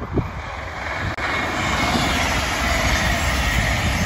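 CrossCountry Voyager diesel multiple unit passing close at speed: a rush of underfloor engine and wheel-on-rail noise that swells about a second in and holds steady as the carriages go by. Wind buffets the microphone near the start.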